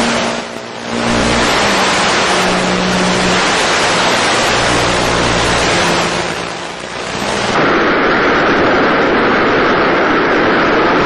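Onboard audio of an electric FPV model plane: the motor and propeller run under power with a steady hum and rushing wind noise, easing off briefly twice. About seven and a half seconds in the sound switches abruptly to a steady rushing hiss, with the motor nearly off as the plane glides.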